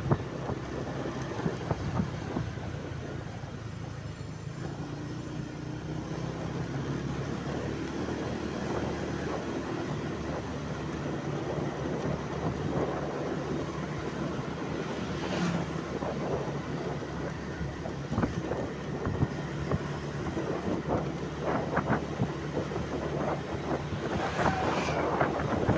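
A vehicle's engine running steadily as a low hum, with many short rattling knocks that become more frequent in the last third.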